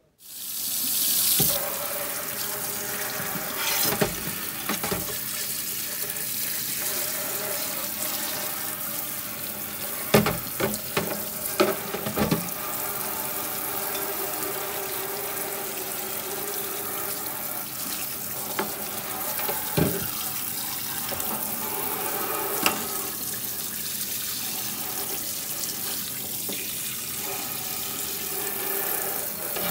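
Kitchen tap running steadily into a stainless steel sink while carburetor parts are rinsed under it. A few sharp knocks come from the metal parts and the parts basket as they are handled in the sink.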